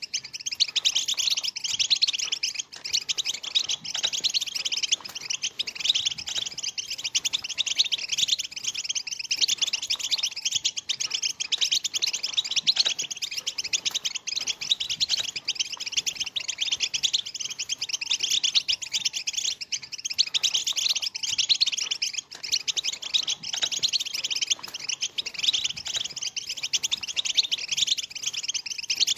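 A flock of European goldfinches twittering together: a dense, unbroken chatter of short, high chirps and trills with no pauses. This is the goldfinch 'batbata' twitter that keepers play to get quiet goldfinches singing.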